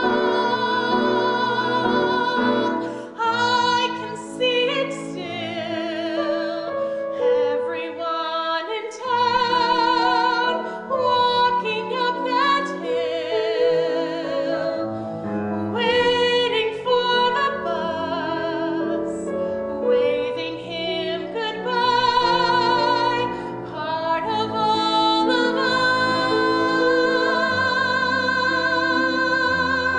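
A woman singing a musical-theatre song solo in a trained voice with vibrato, phrase after phrase, over a piano accompaniment.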